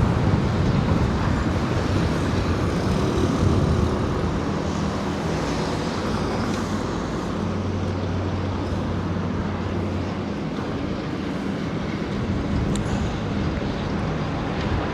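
Steady street traffic noise with an engine running at a steady pitch for a few seconds in the middle, over a low rumble of wind on the microphone.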